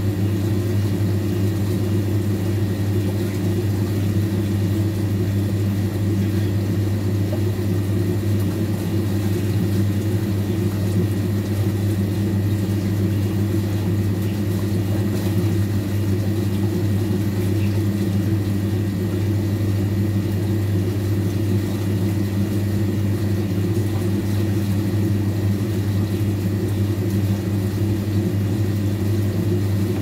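Old washing machine's motor running with a steady low hum that does not change.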